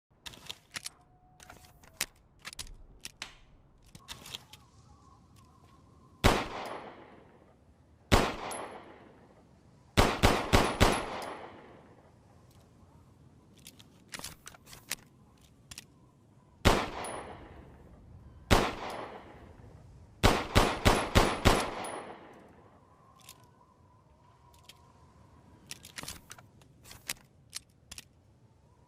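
M1911 .45 ACP pistol firing, each shot followed by an echoing tail: two single shots, a quick string of about five, two more single shots, then another quick string of about five or six. Light clicks come before the first shot and after the last.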